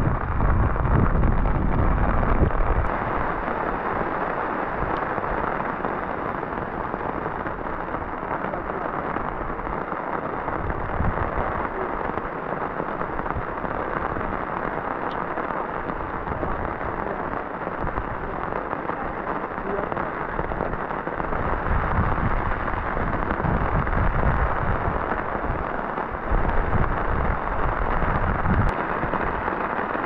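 Heavy rain pouring steadily in a thunderstorm, with stronger low rumbles in the first few seconds and again about three-quarters of the way through.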